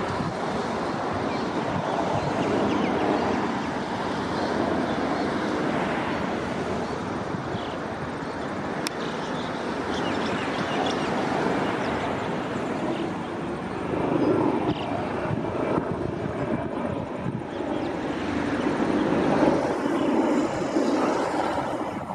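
Police helicopter flying past overhead, a steady drone that swells louder twice in the second half.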